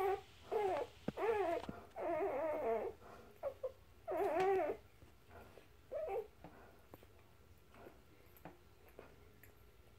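Newborn puppies squealing and whimpering in short, wavering cries, several in the first five seconds, the longest lasting about a second. After that only one fainter cry comes, about six seconds in.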